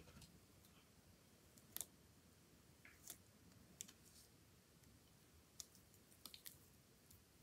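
Near silence broken by sparse, faint clicks and crackles: a Brazilian white knee tarantula (Acanthoscurria geniculata) chewing on a mantis it holds in its fangs.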